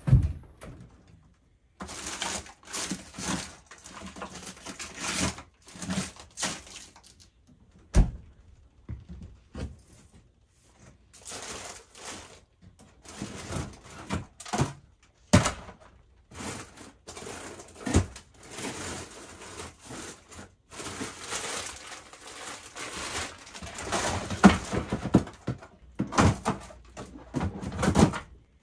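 Rummaging in a chest freezer: plastic bags of frozen food rustling and crinkling, with a handful of sharp thunks and knocks spread through.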